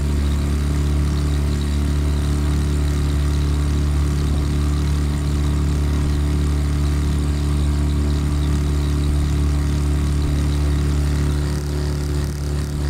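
Yamaha 15 hp outboard motor running steadily at cruising speed as the boat moves through the water, with the rush of its wake and wind over the hum.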